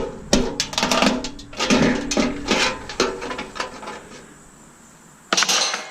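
Irregular series of metallic knocks and clatters as parts are banged and pried out of a stainless steel Bunn-O-Matic coffee maker, some hits ringing briefly. It eases off after about three and a half seconds, and a short harsh scraping noise comes near the end.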